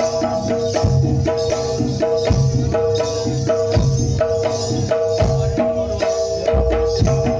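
Javanese gamelan music accompanying a kuda lumping dance: kendang drum strokes in a steady repeating beat under sustained ringing tones from the gong-chime instruments.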